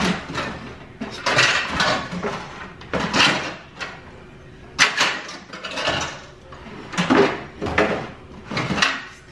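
Dishes and kitchenware clinking and knocking as items are shifted around inside a kitchen cupboard, a string of short clatters about once a second.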